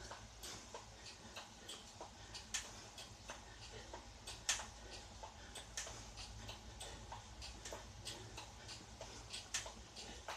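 Indoor spin bike pedalled fast, clicking about three times a second with the pedal strokes, a few clicks sharper than the rest, over a low steady hum.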